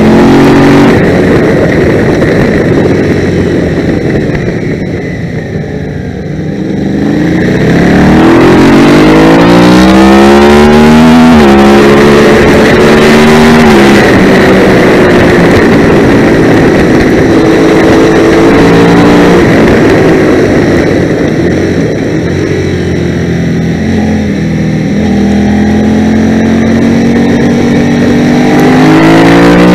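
A 650cc twin-cylinder racing motorcycle engine, heard from on board the bike. It eases off and goes quieter about five seconds in, then revs up through a run of gearshifts, its pitch climbing and dropping back at each change. It eases off again briefly later and picks up once more near the end.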